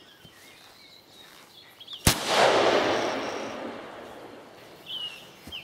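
A single shot from a 6.5 Creedmoor Tikka T3 Lite rifle fitted with a T2 Terminator muzzle brake bored out to a 10.3 mm through hole, about two seconds in. The report echoes away over the next two seconds.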